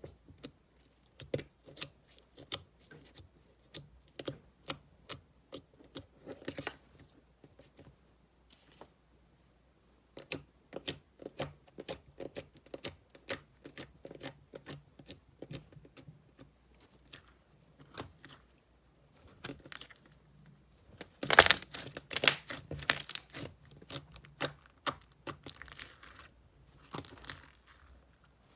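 Slime being squeezed and pressed by hand, making irregular sharp clicks and pops. These break off for a couple of seconds about a third of the way in, then return and swell into a louder stretch of dense crackling about three quarters of the way through.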